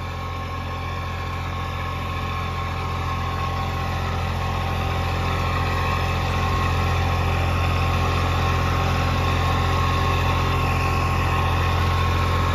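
Eicher 333 tractor's diesel engine running steadily under load in first low gear while it drives a 7-foot rotavator through the soil. The sound grows gradually louder as the tractor comes closer.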